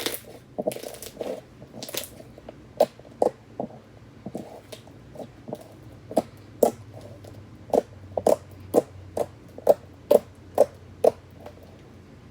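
Slime being squished and pressed by hand, making a run of short, sharp wet pops and clicks. They are scattered at first, then come louder and more evenly, about two a second, in the second half.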